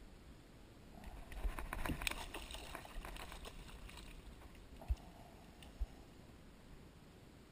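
Kayak fishing handling noise: a couple of seconds of faint rustling and splashy noise with small clicks, then two short dull knocks, like gear bumping the plastic kayak hull.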